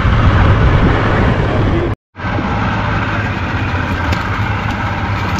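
A boat's motor running steadily, a constant low drone with a noisy wash over it. The sound cuts out completely for a moment about two seconds in, then carries on as before.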